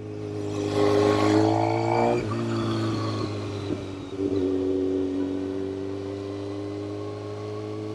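Kawasaki Ninja ZX-6R's inline-four engine under way, rising in pitch for about two seconds, then dropping suddenly and running at a steadier, lower note, with wind rush over the rider's mic.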